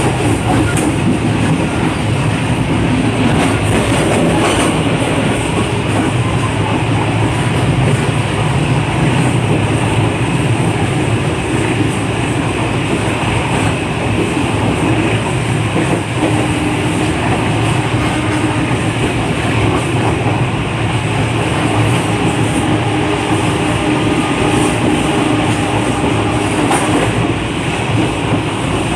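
Passenger train running along the track, heard from the coach vestibule: a steady rumble and rattle of wheels on rail.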